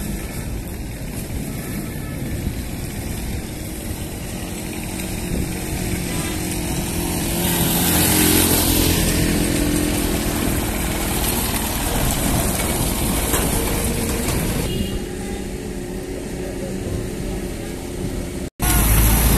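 Motor vehicle engines running with road noise, with no speech. The sound grows louder from about 7 to 14 seconds in, while a small engine-driven cart passes close by.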